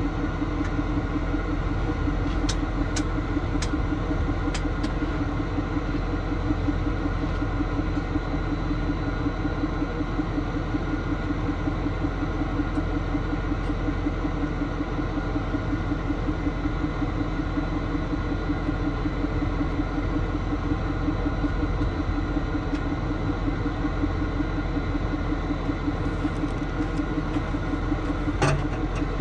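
Tow truck engine idling steadily, with a few light clicks about three seconds in and a knock near the end.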